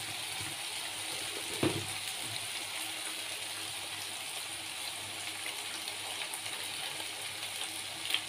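Onion-tomato masala sizzling steadily in oil in a kadai, a continuous hiss with a few faint crackles. There is one short knock about a second and a half in.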